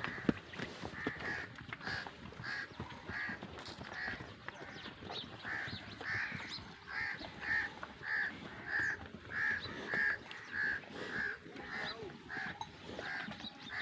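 A bird calling over and over, short calls about two a second, loudest in the middle of the run.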